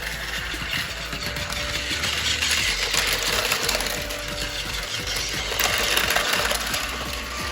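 Battery-powered Plarail toy Shinkansen running on plastic track: a steady small-motor whir with rapid clicking of wheels over the rail joints, swelling twice.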